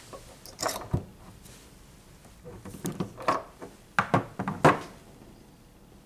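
A hand-held spray pump crimper clicking and knocking as it is worked over a metal spray pump on a glass perfume bottle to crimp it shut. There are a few sharp clicks early on, then a quicker cluster of clicks and clacks from about three to five seconds in.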